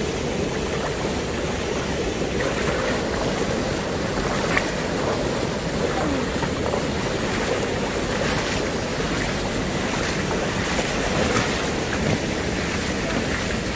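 Small waves washing over a rocky, pebbly shore, with water sloshing and splashing around wading legs and wind buffeting the microphone.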